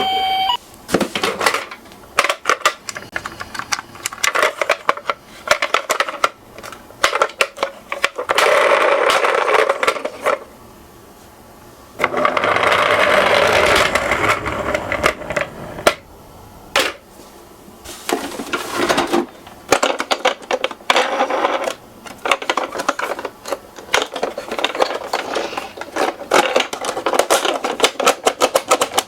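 Toy minicars rolling down a slope: rapid rattling and clicking of small wheels, in clattering bursts with a couple of longer stretches of steady rolling noise.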